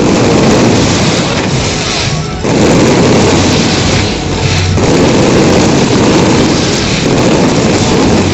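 Fireworks bursting in a rapid, dense barrage that merges into continuous booming and rumbling, very loud on the microphone.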